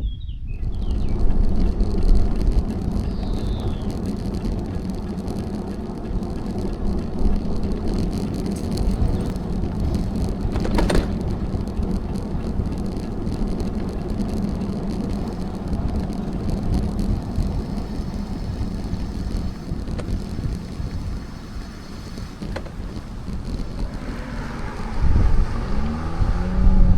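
Bicycle riding along a road: wind rushing on the microphone over tyre and drivetrain noise, with a steady low hum, growing louder in the last few seconds.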